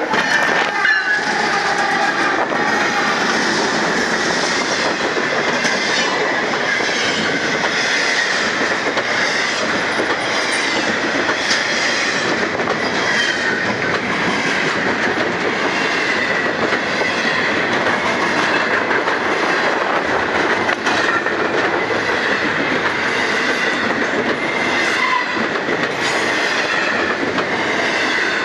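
A Norfolk Southern freight train, led by an ES44AC locomotive, passes close by at speed; then its double-stack intermodal well cars roll past. Steady loud rail noise with a repeating clickety-clack of wheels over the rail joints, and a thin steady squeal from the wheels.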